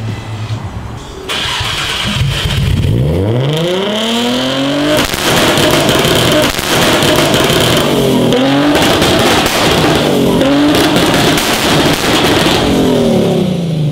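Nissan R34 GT-R's twin-turbo RB26 straight-six, fired up about a second in and revved hard several times with its anti-lag system, the revs climbing and dropping back amid a rapid crackle of pops and bangs. The revs fall away near the end.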